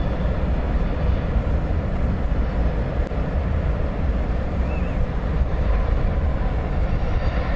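Steady low rumble of a passenger train approaching along the tracks, mixed with wind buffeting the microphone.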